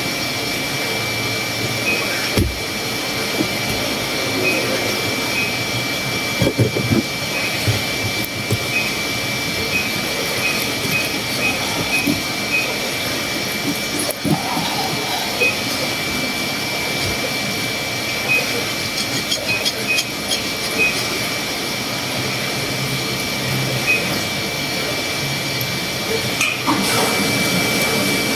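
A steady machine-like whirring drone with a thin, constant high tone in it. Over it come a few scattered knocks of a cleaver cutting milkfish on a cutting board.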